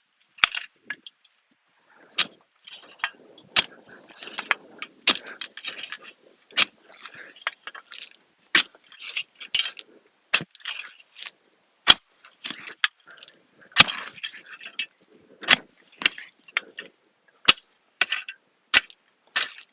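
Garden fork digging through soil: repeated scrapes and crunches with sharp clinks, coming irregularly with short pauses between them.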